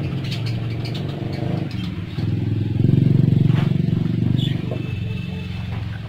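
A motor engine running, low and steady, swelling to its loudest about halfway through and then easing off, like a vehicle going by. A few short high chirps from the caged budgerigars sound faintly above it.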